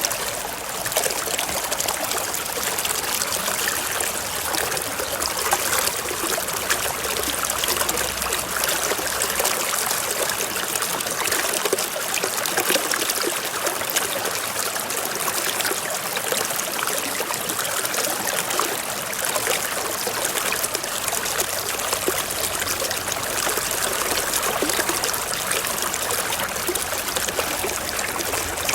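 Waterfall: water cascading in a steady, unbroken rush, mostly hiss with little deep rumble.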